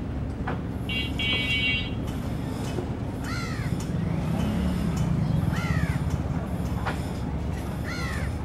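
A crow cawing three times, about two seconds apart, over the steady low drone of a passing bulkhead boat's engine.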